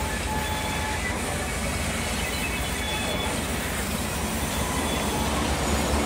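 Large sawmill band saw running and cutting lengthwise through a log: a dense, steady noise of blade and machinery over a strong low hum, with a few faint short squeals. It grows slightly louder near the end.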